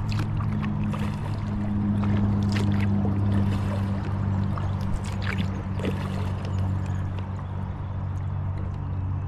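Water splashing and trickling around a moving kayak, with a few brief splashes, over a steady low hum.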